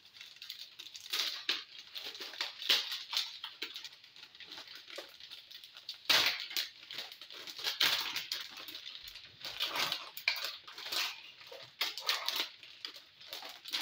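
Plastic food packaging being opened and handled, crinkling and rustling in irregular bursts.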